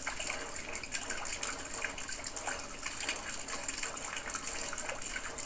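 Rainwater running off a roof and splashing into a plastic bucket: a steady spatter of splashes and drips.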